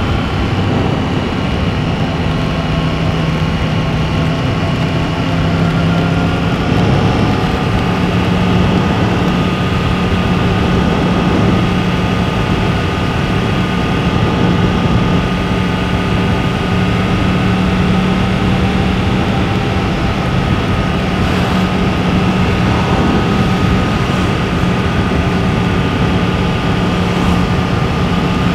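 Yamaha MT-10's crossplane inline-four, breathing through an Akrapovic exhaust, running steadily as the motorcycle cruises. Its pitch steps up slightly about seven seconds in, over a steady rush of wind and road noise.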